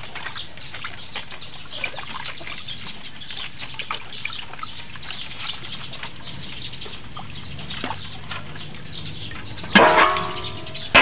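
Water splashing and sloshing in a stainless steel basin as whole yams are rubbed and washed by hand. About ten seconds in, the metal basin gives a loud clang and rings as it is tipped up to empty it.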